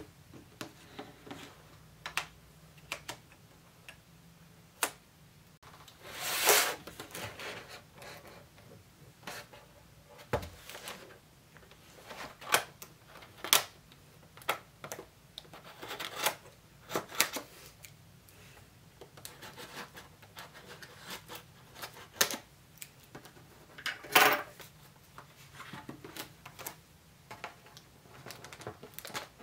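Irregular light taps and clicks: at first an Apple Pencil tip tapping on an iPad's glass screen, then cardboard boxes and packaging being handled. A louder rustle comes about six seconds in and a sharp clack near the end.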